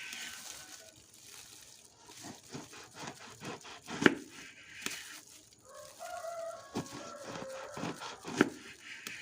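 A rooster crowing in the background, one call about six seconds in that slides slightly down in pitch. Scattered light clicks and knocks run through it, the sharpest about four seconds in.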